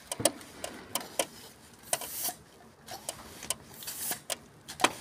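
Plastic syringe working on an Epson inkjet printhead's ink inlets, its plunger pumped to force air through clogged nozzle channels: a run of irregular sharp plastic clicks, with a short hiss about two seconds in.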